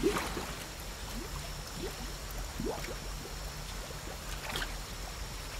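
Waterfall rushing steadily, with a few brief chirps over it.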